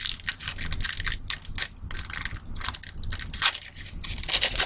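A trading card pack wrapper being torn open and crinkled in the hands: a dense, irregular crackling with louder bursts about three and a half and four and a half seconds in.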